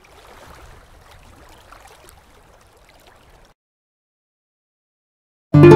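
Faint, even outdoor noise on a boat deck, cutting off about three and a half seconds in. After a short silence, loud guitar music starts near the end.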